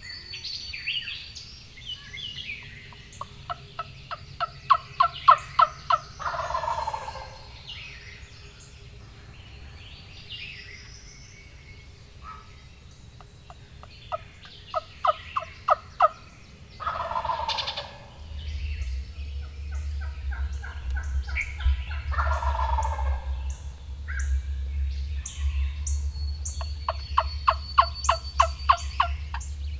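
Wild turkeys calling: runs of rapid, evenly spaced yelps, each answered by a gobble, four times over, with small birds chirping faintly.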